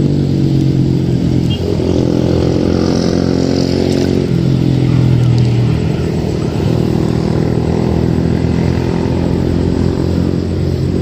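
A motor engine running steadily, a little louder about four to six seconds in.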